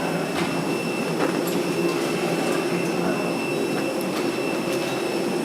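Steady mechanical hum with a high, even whine and a few light clicks.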